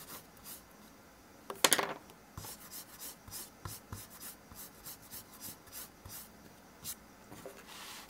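Pencil and hand on a paper workbook page: a louder rub about one and a half seconds in, then a string of short, light scratching and rubbing sounds on the paper.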